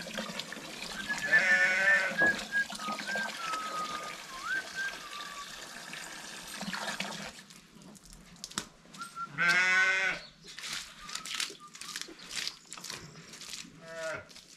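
Sheep bleating: one wavering bleat about a second and a half in, a louder one near ten seconds and a short one near the end. Water runs onto beet-pulp feed to soak it and stops about halfway, followed by scattered clicks and knocks.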